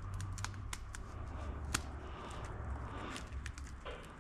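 Scattered small clicks and taps from hands and tools working on an engine wiring harness, over a steady low hum.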